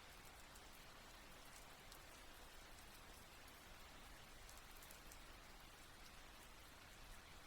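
Rain water dripping softly: a faint, even hiss of rain with many small drip ticks scattered through it.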